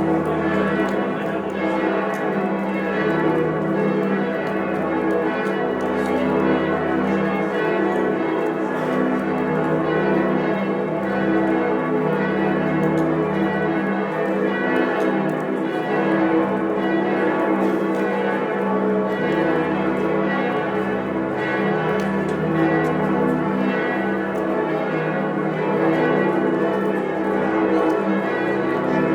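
Church bells swinging and ringing together in a continuous full peal, many bells of different pitches striking over one another without a pause.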